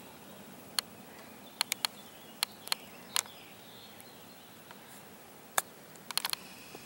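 Golf iron striking the ball on a short pitch shot: one sharp click about five and a half seconds in, followed at once by a quick flurry of smaller clicks. Several fainter sharp ticks come earlier, over a quiet outdoor hiss.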